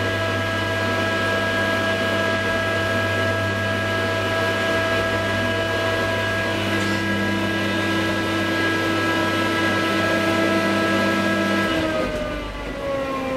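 Traction elevator car in motion: a steady motor hum and whine with several fixed tones. Near the end the pitch glides down and the low hum drops out as the car slows to a stop at the landing.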